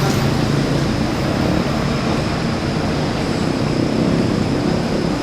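Bus diesel engine running close by, a steady, loud rumble.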